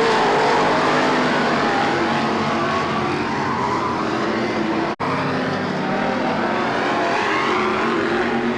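Several stock car engines running hard around a dirt oval, their pitches rising and falling as cars pass. The sound drops out for an instant about five seconds in.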